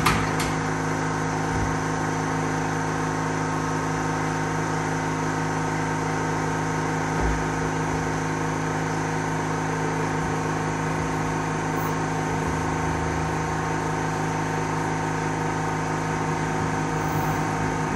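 Workshop machinery running with an even, unchanging hum.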